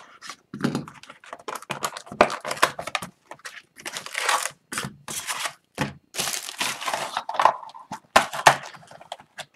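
Shrink wrap slit with a box cutter and torn from a sealed Trilogy hockey card box, then the cardboard box opened and its foil card packs pulled out and set down: a run of irregular crinkling, tearing and rustling with sharp clicks.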